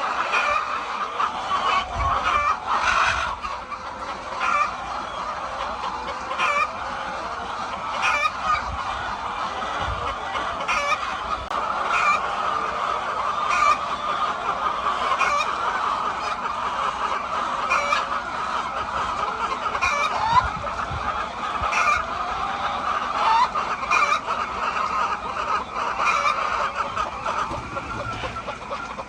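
A flock of many chickens clucking together in a continuous chatter, with sharper single calls standing out every second or two.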